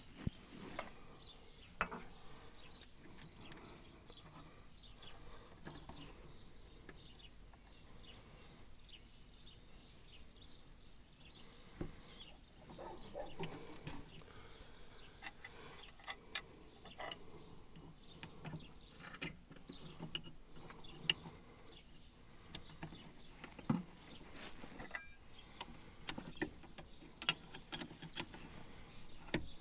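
Hand tools working on hydraulic hose fittings: scattered faint metallic clicks and taps of wrenches against the fittings, irregular rather than rhythmic.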